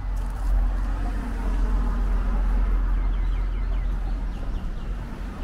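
A motor vehicle passing close by on the street: a low rumble with road noise that swells about half a second in and eases off near the end.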